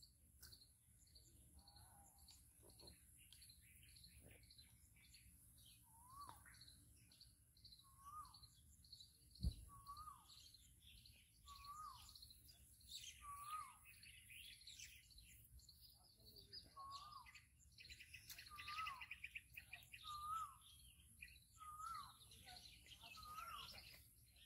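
Faint outdoor birdsong: many small birds chirping, with one bird repeating a short rising-and-falling call every second or two. A single sharp knock comes about nine and a half seconds in.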